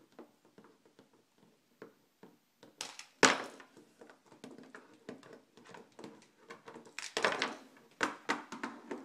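Plastic toy figures being knocked over onto a tabletop: scattered light taps and clatters, with a sharp knock about three seconds in and another burst of knocks around seven to eight seconds in.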